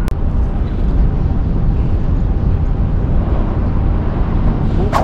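Wind buffeting the camera microphone: a steady low rumble with no voices. There is one sharp click right at the start.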